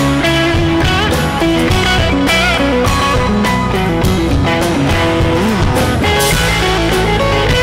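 Rock band playing live without vocals: an electric guitar lead with bent notes over drums and bass guitar.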